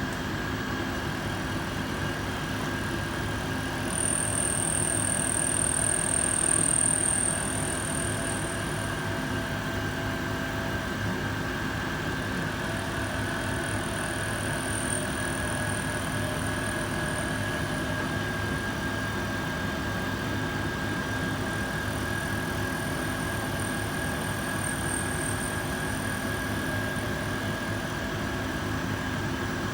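CNC-converted Sieg SX2 mini mill running a facing pass on aluminium with a single-insert face mill: a steady motor hum and whine from the spindle and feed, with a high-pitched whine that is loudest about four to seven seconds in.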